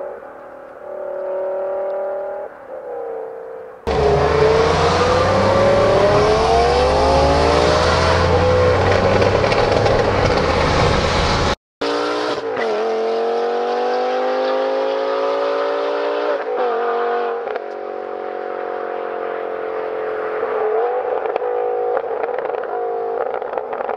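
Bi-supercharged BMW M5 V10 accelerating hard. About four seconds in it suddenly turns very loud, the note climbing with the revs. After a brief dropout it pulls away into the distance, the note rising and dropping back at each of several upshifts.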